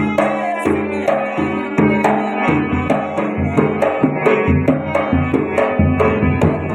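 Instrumental introduction of a Rajasthani Manganiyar folk song. A melody instrument plays sustained notes that move in steps, over a hand drum beating a steady rhythm; no singing yet.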